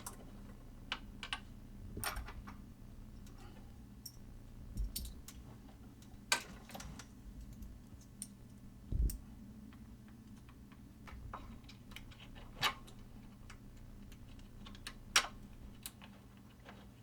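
Scattered metal clicks and knocks as a flatbed table attachment is fitted under a sewing machine and fastened with a wing nut. A steady low hum runs underneath.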